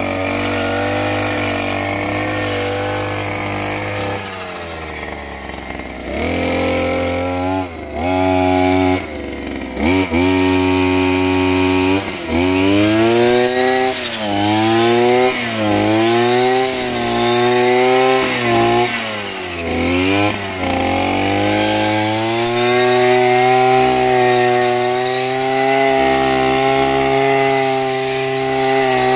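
Two-stroke brush cutter fitted with a 40-tooth circular saw blade, its engine running at high revs. Through the middle stretch the revs dip and recover again and again, about every second and a half, as the blade bites into the material under load, then they hold steady at high speed near the end.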